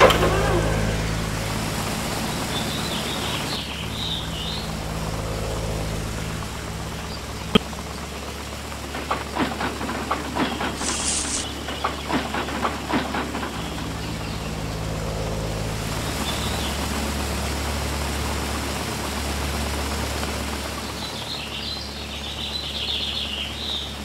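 Steady tractor engine drone, the remote-control toy tractor's simulated engine sound, with birds chirping twice, a few seconds in and again near the end. In the middle comes a run of small clicks and rattles, with a brief hiss, as the tipping trailer dumps its straw.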